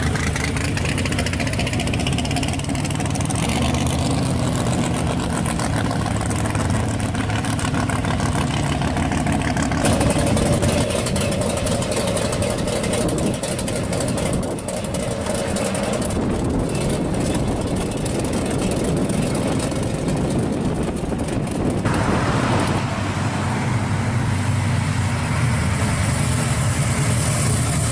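Classic and custom cars pulling out and driving past slowly one after another, engines running at low revs: a lowered Chevrolet S-10 pickup, a 1965 Ford Galaxie 500, then a hood-scooped drag-style Chevelle, whose stronger low engine note takes over near the end.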